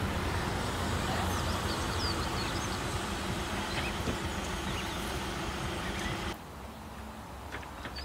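Steady vehicle noise with a low hum, and a few faint high bird chirps over it; about six seconds in it drops abruptly to a quieter background.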